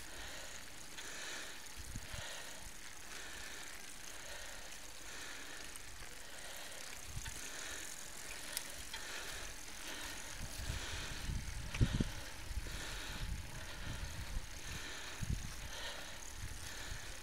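Road bicycles rolling along an asphalt road: steady tyre and road hiss with a regular swishing pulse about one and a half times a second. Wind buffets the microphone with low thumps, heaviest a little past the middle.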